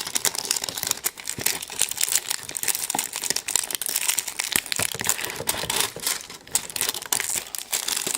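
Wrapper of a surprise egg crinkling and tearing as it is pulled open by hand, a dense run of irregular crackles.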